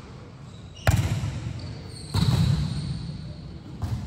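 A volleyball struck with a sharp smack about a second in. About a second later comes a louder thump with a brief high squeak.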